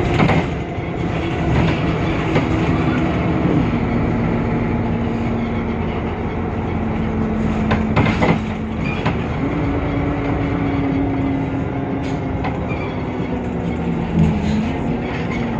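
Temsa Avenue LF city bus running, its DAF PR 228 diesel and ZF Ecolife automatic gearbox giving a steady whine that steps down in pitch about three seconds in, rises again near the middle and drops again near the end, with a couple of sharp knocks from the body.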